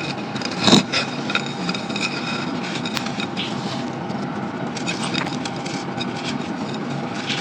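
Crunchy brown sand lumps crumbling in a clay pot: a continuous gritty crunching full of small crackles, with one louder crunch about a second in.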